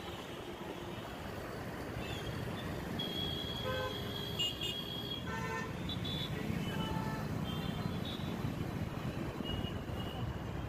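Dense city road traffic of motorbikes and cars, a steady rush of engines and tyres, with several short vehicle horn toots around four to five seconds in.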